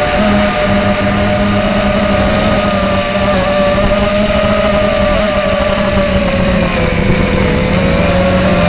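Brushless motors and three-blade 5x4 propellers of an RCX 250 mini racing quadcopter in flight, heard from its onboard camera: a loud, steady buzzing whine of several tones over rushing noise. The pitch sags briefly about seven seconds in, then starts to climb again.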